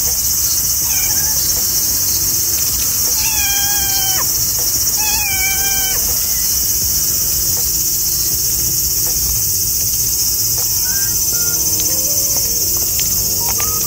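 A cat meows three times in the first half, each call falling in pitch, over a steady high-pitched chorus of insects.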